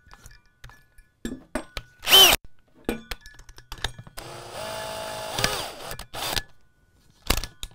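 DeWalt DCD997 brushless cordless drill, fitted with a carbide hole saw, running free in the air. It is blipped once about two seconds in, then spun up to a steady speed for about a second and allowed to wind back down. Light clicks and handling knocks fall between the runs.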